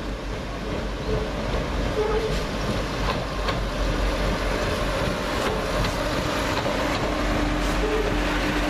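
CrossCountry Class 170 Turbostar diesel multiple unit running into a station, its underfloor diesel engines and wheels on the rails growing louder as it comes alongside.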